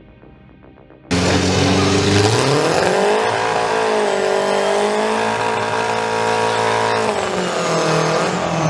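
Faint background music, then about a second in a loud engine starts suddenly and revs up. It holds at high revs, dips briefly and revs up again near the end.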